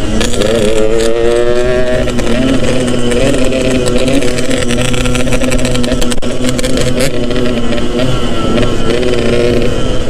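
Yamaha RX-King two-stroke single-cylinder engine pulling under way, heard from the rider's seat. It revs up over the first two seconds, then holds at steady revs.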